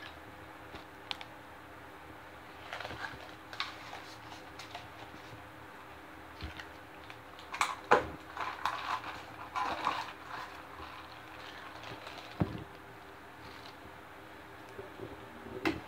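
Scattered clicks and crinkly plastic rustles as a paper fast-food cup of iced tea is fitted with a plastic lid and a straw is pushed in. The loudest rustle comes about eight seconds in.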